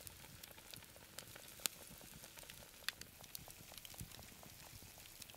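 Campfire embers crackling faintly, with scattered sharp pops over a low hiss; the loudest pop comes a little under two seconds in.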